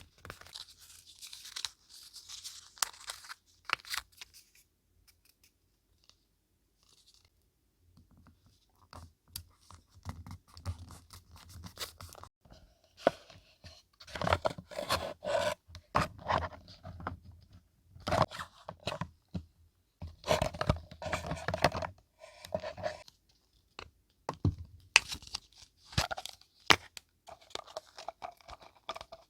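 Paper being torn and crinkled by hand in irregular bursts of rustling and sharp clicks, with a pause of a few seconds near the start.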